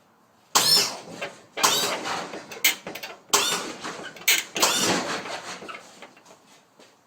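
Lowrider hydraulic setup worked from its switches: about six short, loud bursts of the electric pump motors whining, each starting with a sudden clack, then a few fainter clicks as it settles.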